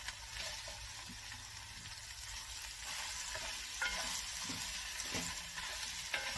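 Diced leek, celery and carrots sizzling in hot fat with onions and tomato paste in a Dutch oven as they are stirred in, with a couple of knocks of the spoon against the pot about four and five seconds in.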